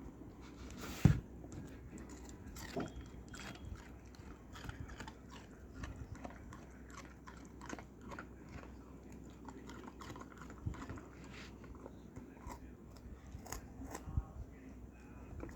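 A dog chewing and biting on something, with many irregular small crunching clicks and a sharp knock about a second in.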